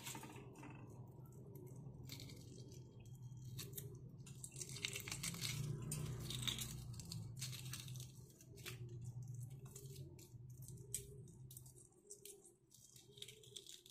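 Hard-boiled egg being peeled by hand: faint, irregular crackling and tearing of the shell as pieces come away, over a low steady hum that fades out near the end.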